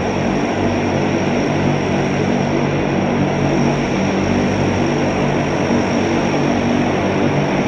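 Super Guppy Turbine's four Allison 501 turboprop engines running, a loud steady propeller drone with a thin high turbine whine above it.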